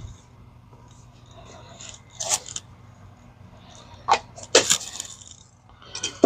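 A few sharp clicks and knocks, the loudest a pair a little past the middle, over a steady low hum.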